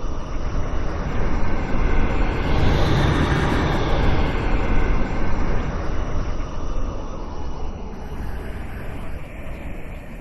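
Designed sci-fi space whoosh: a smooth, noisy swell that builds, peaks about three to five seconds in, then slowly fades away like a slow flyby.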